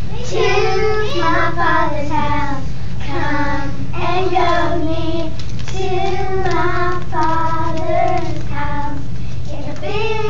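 Four young girls singing a song together in unison, in phrases one after another.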